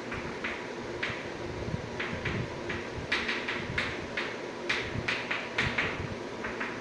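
Chalk writing on a blackboard: quick irregular taps and scratches of the strokes, coming thickest from about three seconds in, over a steady low hum.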